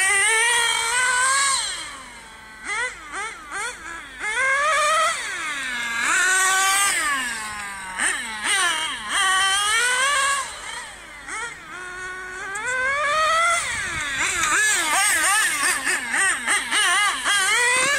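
Small high-revving engine revving up and down over and over, its pitch rising and falling in quick sweeps, with a few quieter stretches between the loud bursts.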